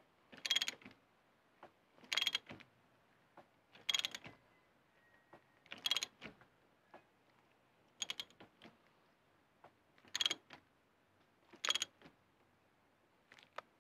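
Ratchet wrench clicking in short rapid bursts, about seven times, as its handle is swung back and forth on the rear wheel hub nut.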